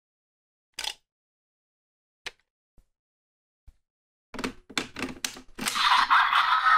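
Plastic clicks of a Raise Buckle being fitted into a DX Desire Driver toy belt: two single sharp clicks, then a quick run of clicks about four seconds in. Near the end the belt's electronic sound effect starts and keeps going.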